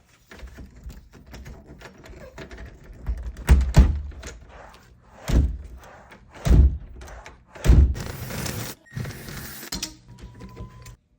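A door with a sticking latch being worked, thunking against its frame four times among lighter knocks and clicks.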